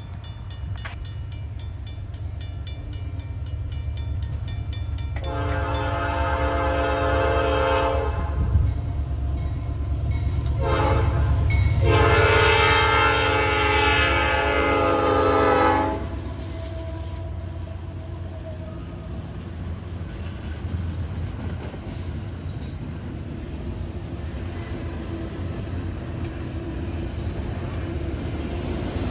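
A Safetran mechanical crossing bell rings as the gates come down. Then the lead locomotive's Nathan Airchime P5 horn (on an NS AC44C6M) sounds a series of blasts, the last long blast cutting off about sixteen seconds in. After that comes the low rumble of the diesel locomotives and double-stack intermodal cars passing over the crossing.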